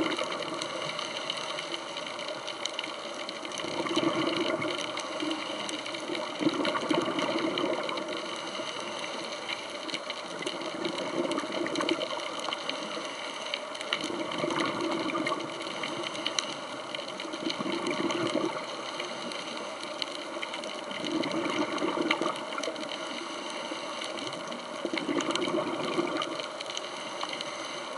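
Underwater sound of a scuba diver breathing through a regulator: swells of exhaled bubbles about every three seconds over a steady hiss, with a faint steady high-pitched hum.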